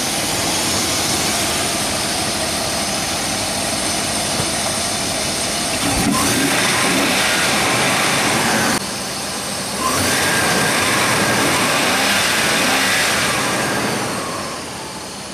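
Holden VS Commodore's 5.0-litre fuel-injected V8 being revved while parked: it runs steadily, then is held at raised revs twice for a few seconds each, with a short drop between, before settling back toward idle near the end. The seller calls the engine running good and not rattly.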